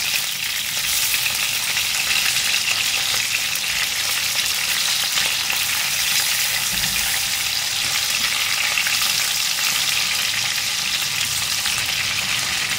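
Raw beef-mince kababs shallow-frying in hot oil in a frying pan, a steady sizzling hiss, as they are turned over with a spatula to cook the second side.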